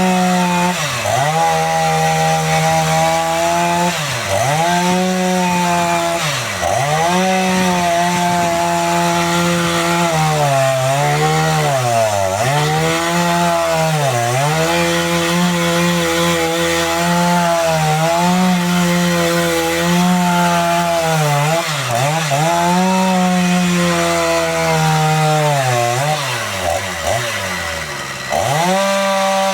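Chainsaw running at high revs and cutting through logs, its engine note dropping and climbing back again and again as the chain bites into the wood and comes free.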